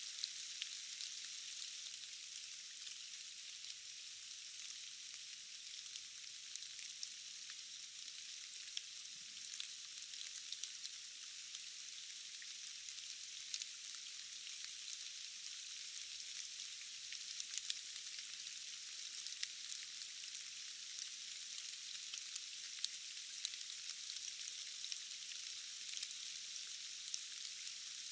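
Steady rain falling, a dense hiss of many drops with small sharp drop ticks scattered through it. The sound is thin and high, with almost nothing in the low end.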